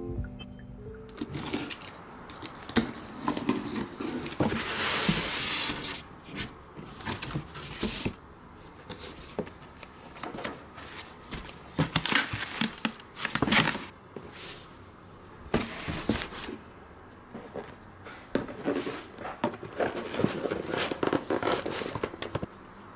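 Rustling and crinkling with scattered clicks and knocks of things being handled, irregular throughout.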